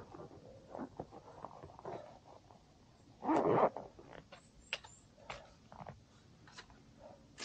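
A hiker's footsteps and gear rustling on a steep mountain trail: soft scattered scuffs and clicks, with one louder scrape or crunch about three seconds in.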